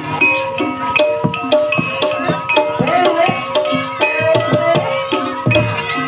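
Javanese gamelan music accompanying an ebeg (kuda kepang) dance: kendang hand-drum strokes, several a second, over ringing metallophone and gong-chime notes.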